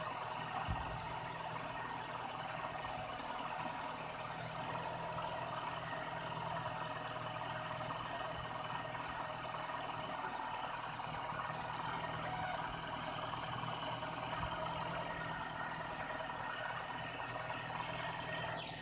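Engine idling steadily, with one short click about a second in.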